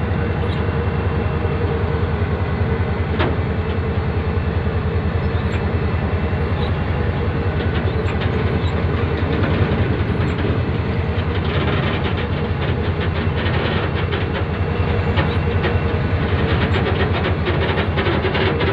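Karachi Circular Railway train pulling out of the station, heard from on board: a steady rumble of the running train with a constant hum, and wheels clicking over rail joints, the clicks coming thicker in the second half.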